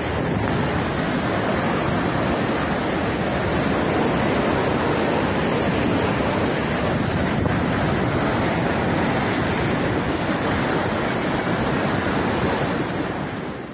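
Steady loud rushing of a river in flood, muddy water churning through rapids; the sound fades out near the end.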